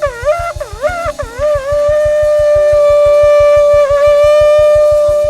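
Ram's horn shofar being blown, loud: first a few short wavering notes that bend up and down in pitch, then, about two seconds in, one long steady blast. A steady low beat runs underneath.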